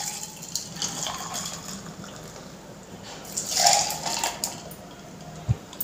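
Strained cucumber juice poured from a plastic bowl into glasses over ice cubes, a steady splashing pour that grows louder for a moment a little past halfway.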